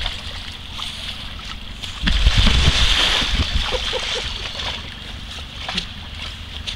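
Water splashing and sloshing around an inflatable water-walking ball as the person inside crawls across a river, with a steady rush of moving water and a low rumble. It grows louder about two seconds in and eases off a couple of seconds later.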